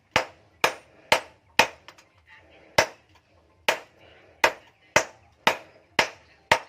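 Hammer blows on metal, forging an axe head: sharp strikes about two a second, each ringing briefly, with one pause of about a second partway through.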